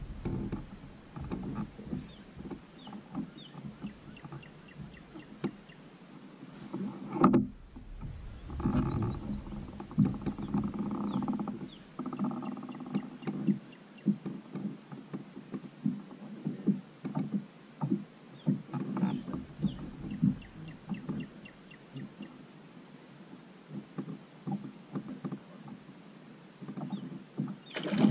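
Irregular knocks and rattles on a plastic fishing kayak's hull and gear, with faint quick ticking, while a fish is fought on a bent rod; a splash near the end as the fish thrashes at the surface beside the kayak.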